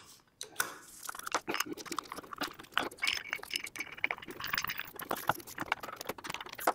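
Hex key working screws into an aluminium housing: a run of small, irregular metallic clicks and clinks.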